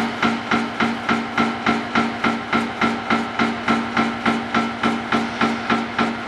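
End face milling machine's cutter head machining the end of a steel beam: a steady motor and gearbox hum with a regular knock about three and a half times a second.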